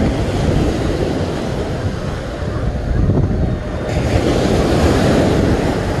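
Ocean surf washing up the beach, with wind buffeting the microphone. The hiss of the surf grows louder about four seconds in.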